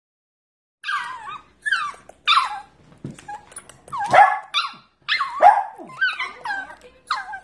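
Corgi puppy vocalizing in a run of short, high calls that slide down in pitch, starting about a second in, protesting at being kissed.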